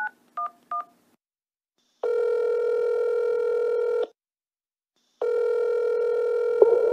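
Telephone keypad tones dialing 9-1-1: three quick two-note beeps. Then the ringback tone rings twice, each ring about two seconds long, as the emergency call goes through.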